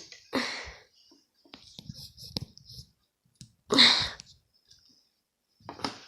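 Bubble slime being handled and squeezed, giving a scatter of small clicks and pops, with two louder short bursts of noise about half a second and four seconds in.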